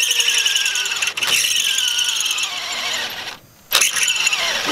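A cordless drill boring into a car's steering spindle gives a high, loud squeal, its pitch sliding down as the bit loads up. The drill stops briefly about three and a half seconds in, then starts again.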